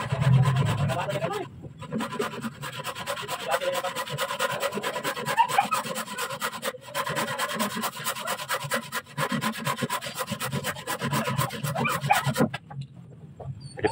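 Hand saw cutting through a wooden rail with steady back-and-forth strokes. The saw pauses briefly about a second and a half in and again about seven seconds in, then stops shortly before the end.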